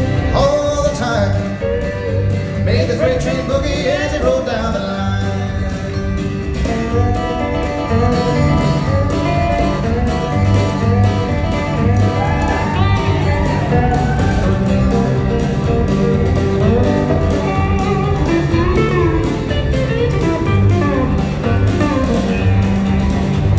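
Live country boogie band playing an instrumental break: quick guitar runs with bent notes over a walking upright bass and a steady drum beat.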